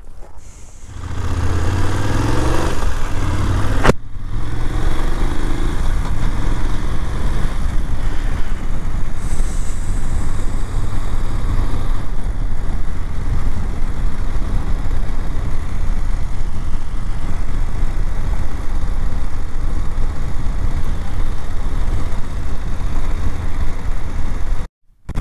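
BMW F750GS parallel-twin motorcycle engine pulling away and rising in pitch through the first gears, then a steady ride on a gravel road with engine, wind and tyre noise. The sound drops out briefly just before the end.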